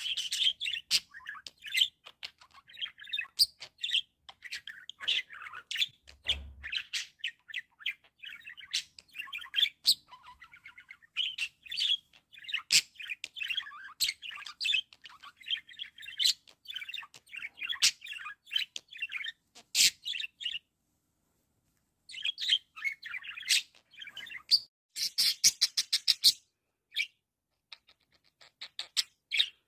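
Budgerigar warbling and chattering: a fast, continuous run of short chirps, clicks and squeaky notes. It breaks off for about a second and a half two-thirds of the way through, then resumes with a quick rattle of clicks.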